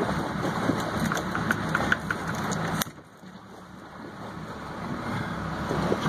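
Boat engine idling under steady wind and deck noise, with a few light clicks. About three seconds in, a sharp click, then the sound drops suddenly and slowly builds back up.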